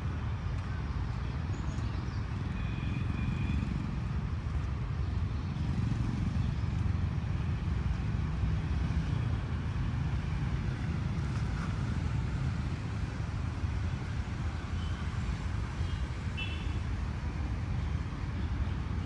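Steady low rumble of road traffic, with a few short bird chirps: a couple a few seconds in and more near the end.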